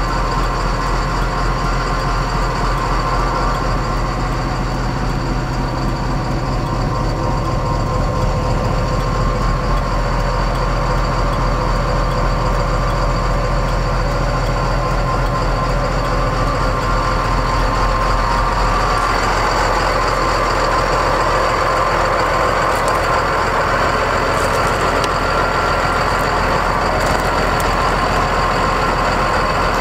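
Ford F650's Cummins ISB 5.9-litre straight-six turbo diesel engine idling steadily. About two-thirds of the way through, its sound changes: the low rumble thins and a higher hum comes forward.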